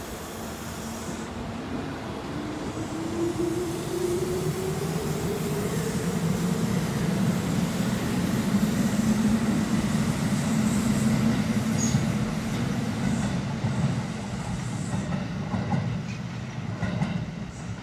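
Kintetsu 20000 series 'Tanoshi' electric train pulling out: a motor whine rises in pitch over the first few seconds as it accelerates. Then a steady rumble and clatter of wheels on the rails fades as it runs away near the end.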